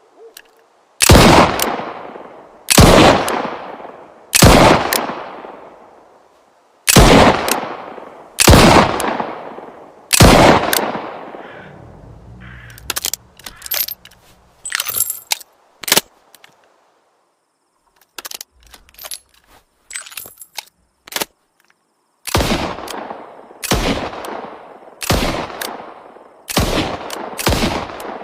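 Rhino revolver sound effect: six shots roughly a second and a half apart, each with a long ringing tail, then a run of short sharp clicks, then six more shots fired a little faster.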